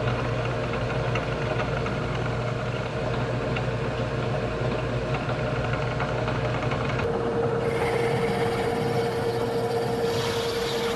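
Milling machine running steadily with its cutter working on a two-stroke crankcase casting. About seven seconds in, a steady whine comes up and the sound turns brighter and hissier.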